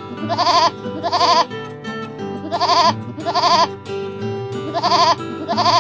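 Goat bleating six times in three pairs, each bleat short and quavering, over light background music with guitar.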